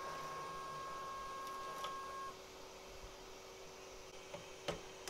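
3D printer's extruder stepper motor whining at one steady pitch as it drives the filament back out during unloading, stopping suddenly about two seconds in. A low steady hum runs underneath, with a couple of faint taps near the end.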